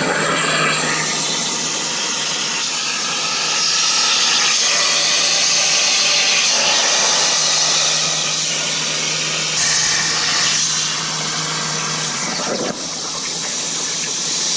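CNC plasma cutter torch cutting steel sheet over a water table: a steady, loud hiss of the plasma arc and air with a low hum under it. About two seconds before the end the hum stops and the level dips, while the hiss goes on.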